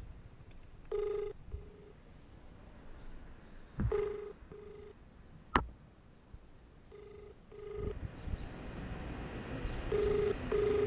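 Telephone ringback tone on an outgoing mobile call: a double ring, two short beeps, repeating about every three seconds, four times. It means the called phone is ringing and has not yet been answered. A few faint clicks sound between the rings.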